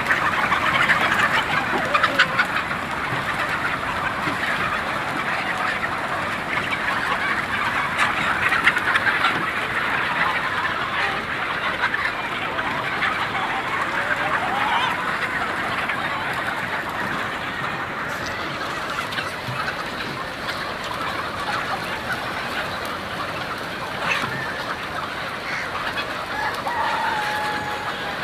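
A large flock of chickens clucking and squawking all at once in a dense, steady din. Now and then a longer call stands out, a rooster crowing.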